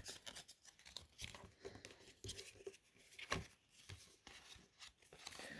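Faint rustling and scattered light clicks of trading cards and their packaging being handled, with a slightly sharper click a little over three seconds in.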